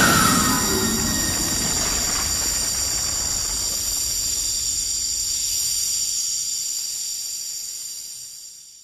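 Magic-spell sound effect from an anime: a sustained hissing rush with several steady high ringing tones, fading out over the last couple of seconds.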